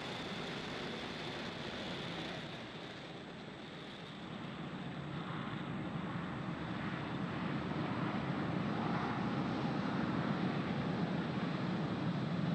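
Steady roar of a Falcon 9 rocket's first stage, its nine Merlin 1D engines at full thrust during ascent. The roar dips briefly a few seconds in, then builds louder and deeper toward the end.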